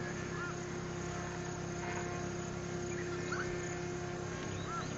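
Steady, distant buzzing drone of the Baby Cub mk2 UAV's engine and propeller in flight, holding one even pitch. Three short arched chirps sound faintly over it.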